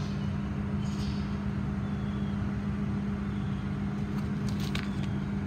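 An engine running steadily, a constant low hum that does not change in speed.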